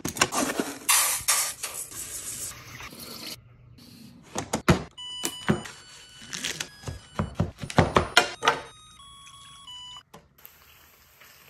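A quick succession of kitchen sounds: a knife chopping through a pack of bacon on a cutting board in sharp thunks, over a short tune of electronic beeps. Near the end, water is poured into a stainless steel frying pan with a steady hiss.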